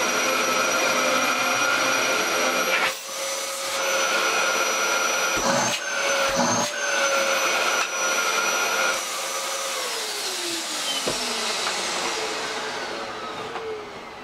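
Bagless upright vacuum cleaner running with a steady motor whine, which dips briefly a few times, then is switched off about nine seconds in: the whine falls steadily in pitch and fades as the motor spins down.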